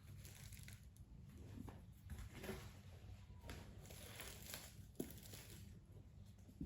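Faint crinkling and rustling of packaging being handled and opened, in soft irregular bursts, with one short sharp click about five seconds in.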